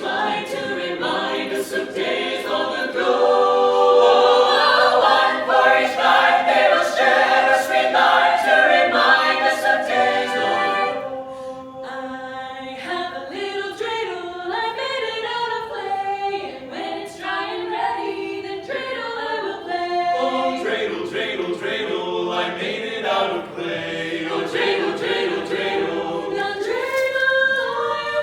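A cappella vocal ensemble singing a holiday song in close harmony, echoing under a dome. It is loudest over the first ten seconds, drops about eleven seconds in, and goes on more softly.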